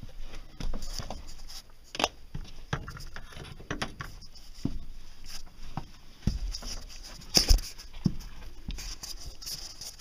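Irregular footsteps, knocks and scuffs of a person moving over wooden attic joists and debris, with handling noise on the handheld camera. The loudest knock comes about seven and a half seconds in.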